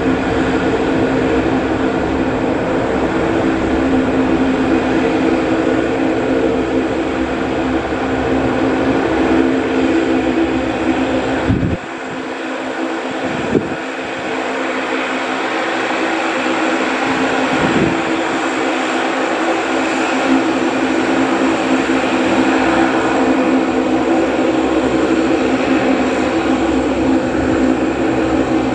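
Lockheed C-130 Hercules's four Allison T56 turboprop engines and propellers running steadily at taxi power, a loud continuous hum with a strong propeller tone. The low rumble drops away for several seconds about twelve seconds in.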